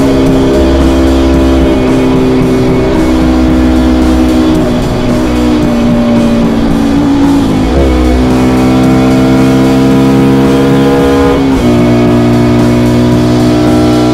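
KTM Duke 200 single-cylinder engine through an SC Project SC1-R exhaust while riding. It holds steady revs, eases off about a third of the way in, and picks up quickly past halfway. Revs then climb steadily, drop suddenly at a gear change near the end, and climb again.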